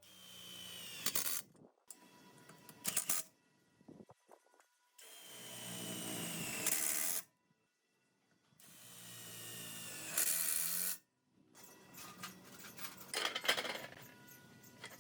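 A power tool with an electric motor runs in three short bursts of about two seconds each. Each burst grows louder and then cuts off sharply, and toward the end there are rattling, clicking tool noises.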